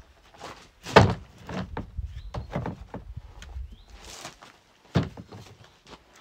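A series of dull thumps and knocks: a loud one about a second in, several lighter ones over the next two seconds, and another sharp thump near five seconds.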